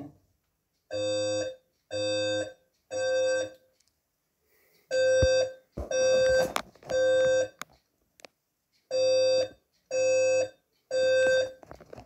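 Fire alarm evacuation tone at 520 Hz in the Code-3 (temporal-three) pattern: three beeps of about half a second each, then a pause, heard three times over. The three-beep pattern is the standard signal to evacuate the building.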